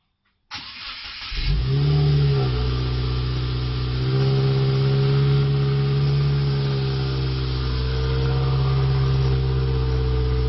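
2019 Subaru WRX's turbocharged 2.0-litre flat-four being started: about a second of cranking, then it catches with a brief flare in revs and settles into a steady fast idle.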